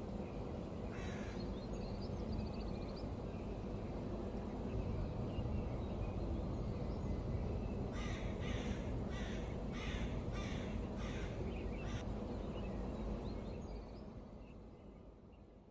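Outdoor ambience: a steady low rumble. About eight seconds in there is a run of about seven harsh bird calls, roughly two a second, and a few fainter calls come earlier. It fades out near the end.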